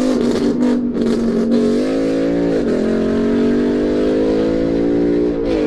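Handheld air horn blasting in one long held blast, its pitch dipping briefly about midway and again near the end.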